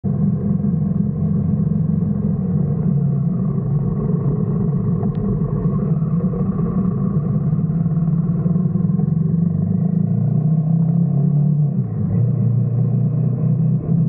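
Royal Enfield Himalayan 450's single-cylinder engine running steadily at road speed, heard close up as a low, even drone; its note drops about twelve seconds in, as at a change of throttle or gear.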